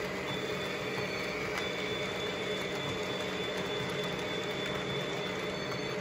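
Model electric trains running on the layout's track: a steady rumble of wheels and motors with a faint high whine.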